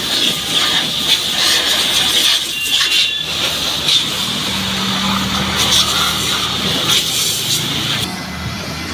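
Pressure-washer jet hissing steadily as it sprays water onto a scooter's wheel and frame, easing off near the end. A steady low hum joins about halfway through.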